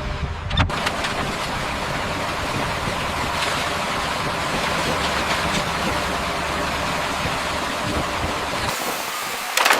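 A steady mechanical rumble of machinery running. Near the end it changes abruptly to a thinner hiss, with a few sharp knocks.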